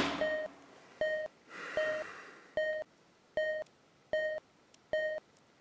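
Armed bomb's countdown timer beeping: seven short electronic beeps, evenly spaced a little under a second apart, the sign that the device has been activated.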